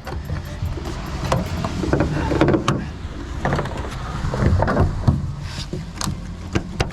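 Irregular knocks, clanks and rattles of hand work on a pickup truck's rear end, parts and tools being handled, over a steady low hum.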